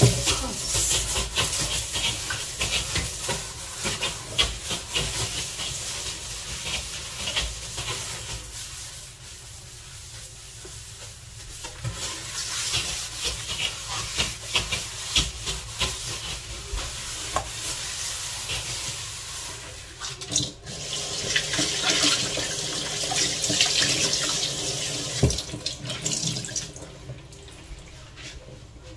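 Water running from a tap into a sink, with splashing and repeated short clatters, quieter near the end.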